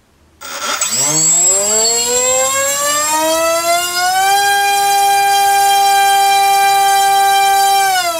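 Turnigy 2826-6 2200 kV brushless motor driving a TGS 6x4 propeller on a 4S battery, spinning up from rest about half a second in: its whine rises in pitch for about four seconds, holds steady at full throttle, then begins to wind down near the end.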